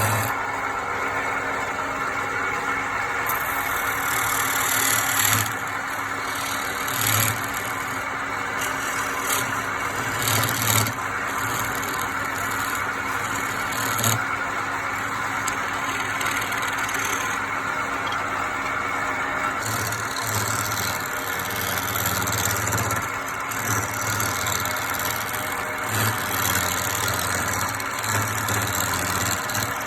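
Electric woodworking machine running steadily, with short louder bursts every second or two.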